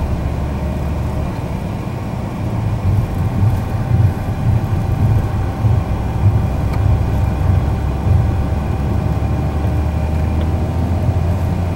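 Inside a moving car's cabin: a steady low rumble of engine and road noise with a faint steady whine. The rumble turns rougher and uneven for a few seconds in the middle.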